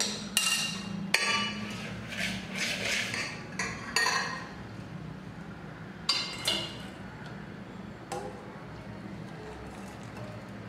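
Steel tea strainer knocking and clinking against a stainless steel bowl and scraped with a metal spoon. The knocks ring like metal, with several close together in the first half and a couple more later on.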